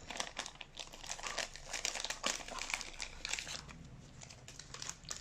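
Thin plastic crinkling and crackling as trading cards and their packaging are handled. It comes in a dense run of irregular crackles that thins out near the end.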